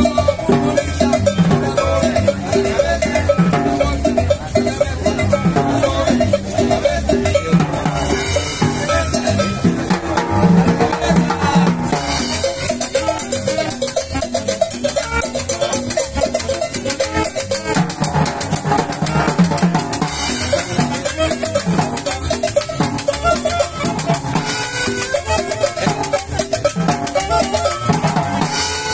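A live street band playing Salvadoran cumbia: saxophones and a small guitar over conga and snare drum, with a cymbal beating out a steady dance rhythm.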